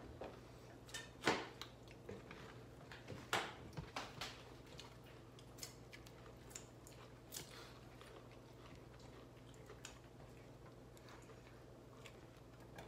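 Faint eating sounds: scattered short clicks and smacks of people chewing food eaten by hand, more frequent in the first half, over a steady low hum.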